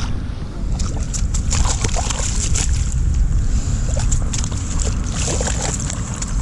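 Water splashing and sloshing in short bursts, over a steady low rumble of wind on the microphone.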